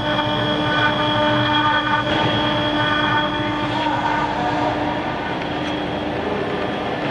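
Mini CNC router BJD6060's spindle running while its cutter engraves an aluminium plate: a steady whine of several tones over a noisy cutting hiss. The whine weakens about four seconds in.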